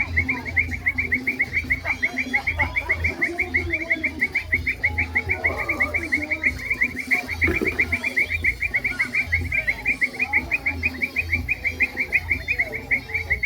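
Evening outdoor animal chorus. A steady, rapid pulsing call repeats several times a second without a break, with scattered bird calls beneath it.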